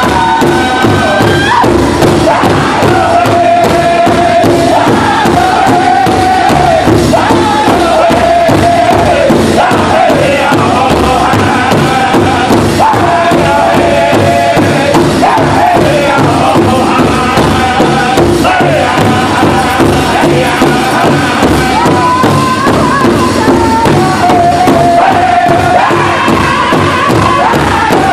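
Powwow drum group singing a two-step song in unison while beating a large hide-topped powwow drum together in a steady beat, heard loud and close from the drum. The sung melody steps down in pitch phrase by phrase.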